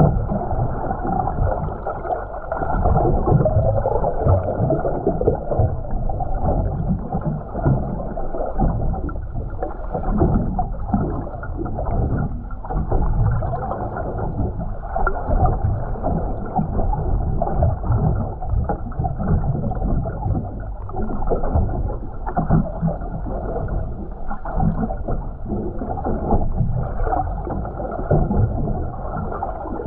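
Muffled underwater water noise picked up by a submerged camera, partly the electric trolling motor holding the boat in place. It is a continuous rushing that swells and dips, without distinct knocks.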